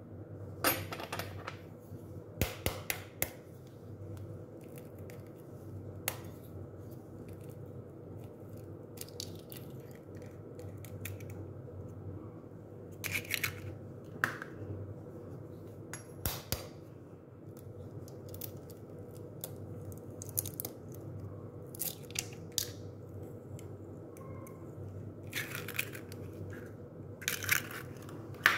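Eggs cracked one at a time into a ceramic bowl: clusters of sharp taps and crunching eggshell, a few seconds in, in the middle, and near the end, over a steady low hum.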